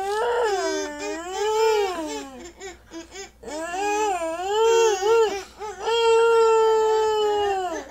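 Drinking straws blown like a makeshift saxophone: buzzy pitched tones that waver up and down, break off briefly in the middle, then a long held note that sinks slightly near the end.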